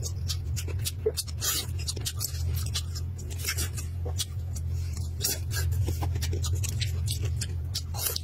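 Close-up eating sounds: chicken meat being torn by hand and chewed with wet smacks and many quick crackles and clicks. A steady low hum runs underneath.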